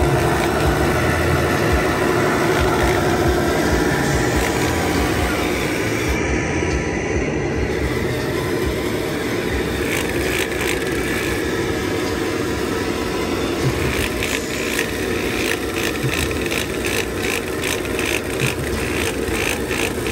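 Lesu 1/14 scale RC road roller running, its electric drive and hydraulic pump making a steady mechanical whine, with a run of quick ticks in the last several seconds.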